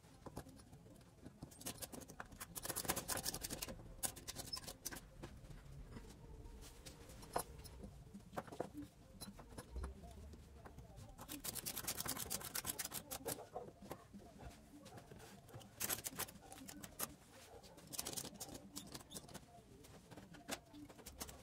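Ratchet strap being fed around and tightened on a glued-up table top: nylon webbing rattling and sliding, with several bursts of quick ratchet clicks.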